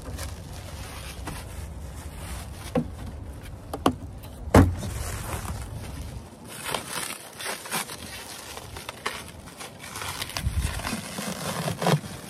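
A plastic-wrapped foam mattress and its cardboard box being handled: a few knocks and thumps, the loudest about halfway through, then plastic wrap crinkling and rustling. A low hum underneath drops away about halfway through.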